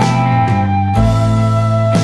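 Instrumental background music: held notes and chords that change about every half second to a second.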